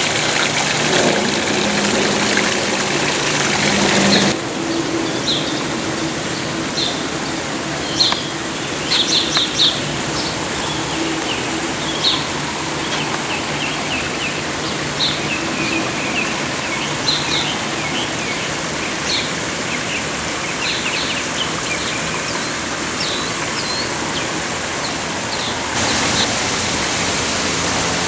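Water running steadily in a garden stream, with small birds chirping in short, high calls through the middle, most densely about eight to ten seconds in. A low hum sits under the water at the start and again near the end, where the background changes abruptly.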